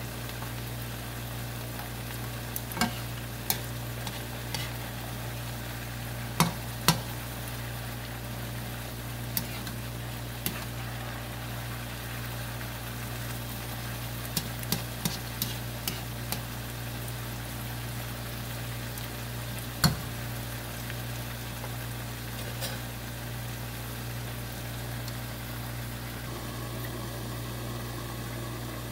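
Yardlong beans and pork belly sizzling in a nonstick wok, with a plastic spatula stirring and tapping against the pan in scattered clicks, the loudest about twenty seconds in. A steady low hum runs underneath.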